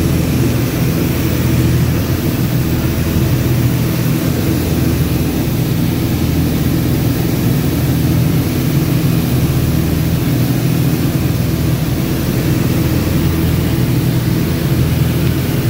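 Piston engine and propeller of a single-engine light airplane in flight, a steady low drone heard from inside the cockpit.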